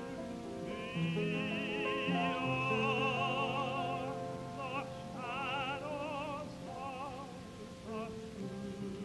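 Vocal group singing a gospel song in harmony, several voices holding long notes with wide vibrato and moving from chord to chord every second or two.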